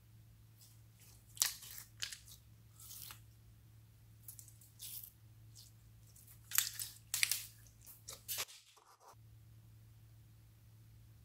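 Clear green slime with beads in it being stretched and squeezed by hand, giving a string of short sticky crackles over the first eight seconds or so. After that only a low steady hum remains.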